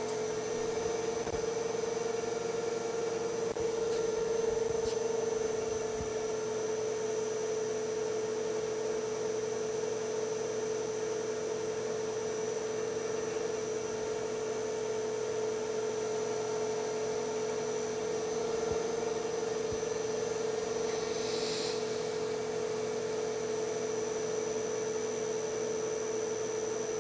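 Metal lathe running with a steady hum as its spindle turns and the tool cuts a Morse taper No. 4 on a metal bar in an automated multi-pass cycle. There is a brief hiss about 21 seconds in.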